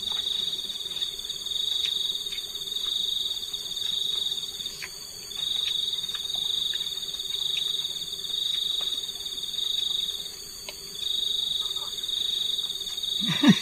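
Night insects trilling: a steady high-pitched cricket-like trill that swells and fades about every second and a half, with a few faint clicks of eating.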